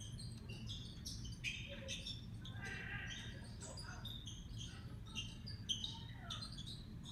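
Basketball shoes squeaking on a hardwood court during play: many short, high chirps in quick irregular succession, over a steady low arena murmur.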